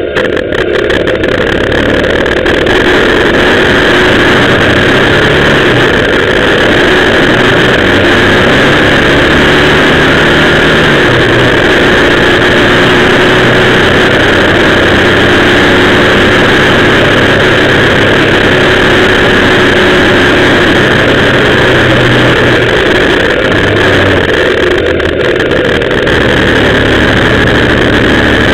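Motorcycle engine running under way, loud wind noise on the microphone, with the engine note rising and falling several times as the revs change.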